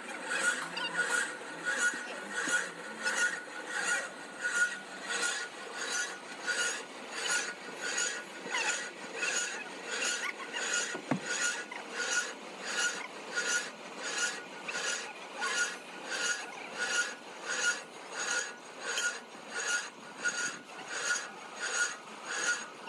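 A rhythmic mechanical rasping at about two even strokes a second.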